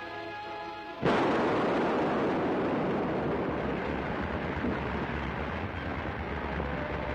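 Orchestral music cut off about a second in by a sudden loud explosive blast on a cliff, followed by a long steady rushing rumble of rock and debris coming down.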